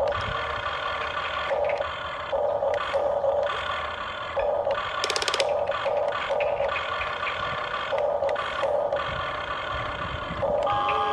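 Electric motors of a Huina 1593 RC excavator whining steadily, with a lower motor hum cutting in and out in short spurts as functions are worked. A brief clicking rattle comes about five seconds in.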